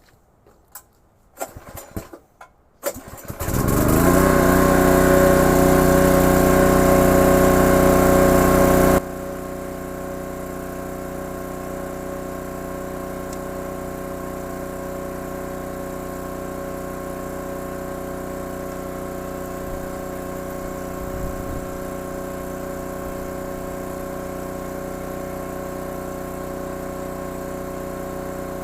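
Converted pressure-washer jetter's small engine starting after a few knocks and running loud with a hissing rush. About nine seconds in the hiss and loudness drop away suddenly, and the engine keeps running steadily.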